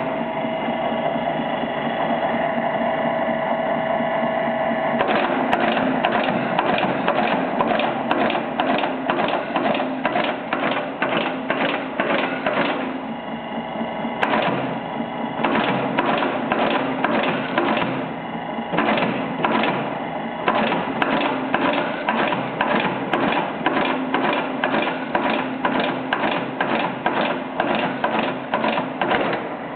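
Three-type rivet setting machine with its motor running in a steady hum. From about five seconds in come rapid repeated clacks, about two a second with a few short pauses, as the pedal-driven setting head fastens rivets through layers of denim.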